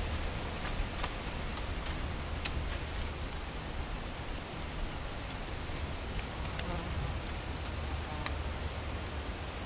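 Wind rustling dry autumn maple leaves in the trees, with a low rumble of wind buffeting the microphone and scattered light ticks of dry leaves.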